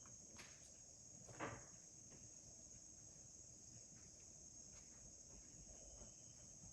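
Near silence: room tone with a faint steady high-pitched hiss and a few faint soft clicks.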